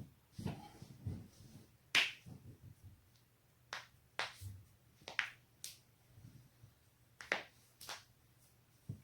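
Spinal joints cracking. About ten sharp, irregularly spaced pops and cracks, the loudest about two seconds in.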